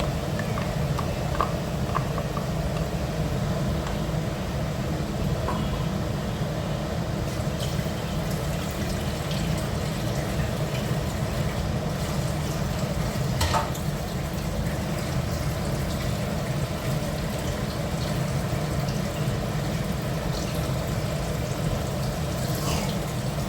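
Spice paste being added to chicken in a nonstick kadai and stirred in, making wet stirring and cooking sounds over a steady low rumble. A few sharp knocks of a utensil against the pan come through, the loudest about halfway through.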